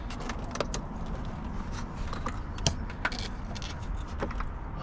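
Scattered light clicks and knocks of tools and metal parts as a serpentine belt is worked onto the engine's pulleys with the belt tensioner held back, with one sharper knock about two and a half seconds in, over a steady low hum.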